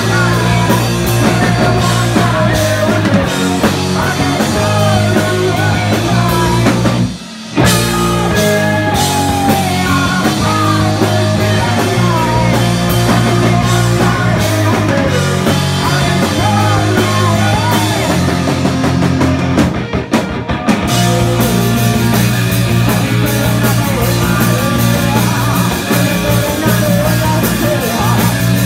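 Live rock band playing loudly, with a woman singing lead and a man singing backing vocals over electric guitar, electric bass and a drum kit. The band cuts out for a short break about seven seconds in, then comes straight back in.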